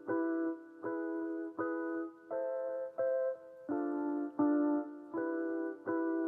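Background music: a slow, gentle electric piano melody, single notes struck about every three quarters of a second.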